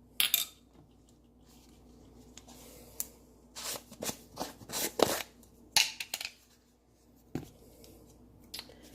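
Scattered short rustles and scrapes of hands handling kitchen containers and a measuring spoon while dry cake ingredients are measured out, busiest in the middle.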